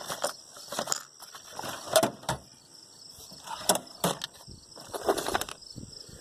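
Metal hand tools and sockets clinking and clattering as they are rummaged through in a toolbox, a few irregular knocks and rattles.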